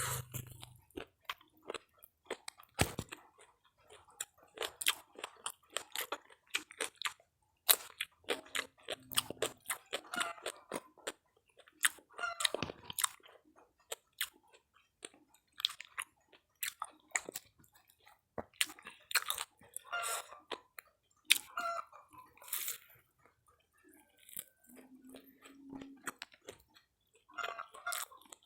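Crisp crunching and chewing of fried Indonesian snacks (gorengan) close to the microphone, in irregular bites and chews.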